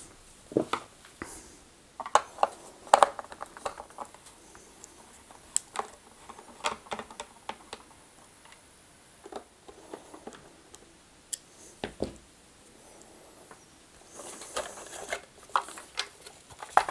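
Hand screwdriver undoing screws in the plastic underside of a vacuum cleaner head: scattered small clicks and taps of metal on plastic at irregular intervals. Near the end a short rustle of plastic as the base plate is lifted off.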